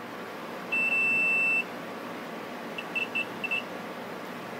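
Digital multimeter's continuity beeper: one steady high beep just under a second long, then a few short broken beeps about three seconds in. The beeps signal a closed circuit between the probes during a continuity check of the drone's wiring.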